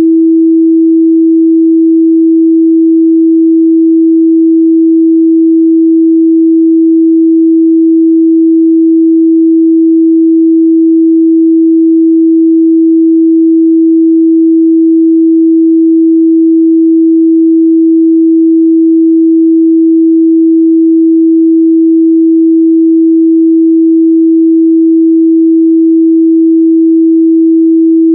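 Pure 326 Hz sine-wave test tone, one steady unwavering pitch held without a break, loud.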